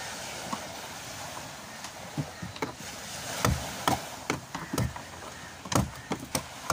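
Hammer knocking at a small metal plate on a fibreglass boat hull: a few faint taps early, then sharp, irregular knocks about every half second from about halfway through, over a steady background hiss.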